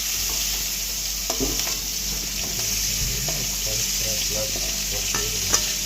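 Prawns frying in hot oil in a kadai: a steady sizzle, with a few short clicks, the loudest near the end.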